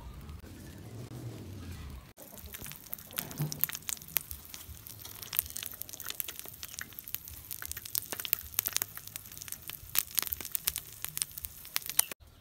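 Egg sizzling and crackling as it cooks in the upturned bottom of an aluminium drink can heated by a candle, with dense, irregular pops. It starts abruptly about two seconds in, after a low steady rumble.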